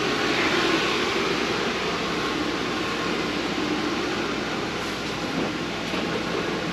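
Electric fan running steadily: an even rush of air with a faint low hum.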